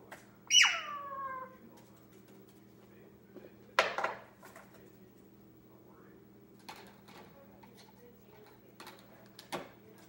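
Indian ringneck parrot giving one loud call that slides down in pitch, about half a second in, then a short harsh burst about four seconds in, followed by a few light clicks and taps.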